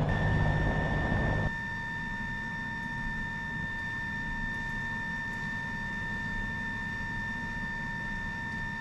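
Helicopter rotor and engine noise that cuts off abruptly about a second and a half in. After it comes a quieter, steady low rumble with a thin, steady high whine.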